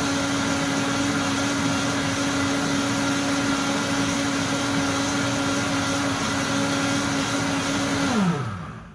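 Automatic countertop blender running on its smoothie program, a steady motor whine over the churn of a thick green smoothie (kiwi with skin, powders, flaxseed oil). Near the end the motor winds down with a falling pitch and stops as the program finishes on its own.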